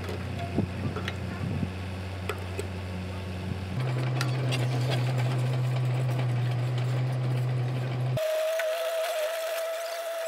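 An engine running with a steady low hum and scattered clicks. About four seconds in it shifts to a smoother, slightly higher hum. Near the end it cuts off abruptly, leaving a thin steady whine.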